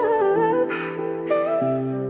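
Sped-up R&B song: a wordless melodic passage with sustained synth and bass notes, a short swish about halfway through.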